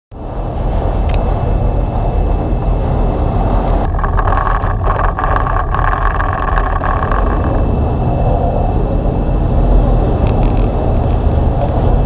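Dive boat's engine running steadily under way, a constant low drone, with a higher hum joining in for a few seconds in the middle.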